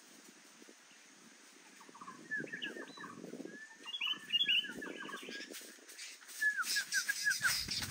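Sooty-headed bulbuls calling in quick runs of short falling chirps, starting about two seconds in. Dry leaves rustle and crackle under them, getting louder near the end.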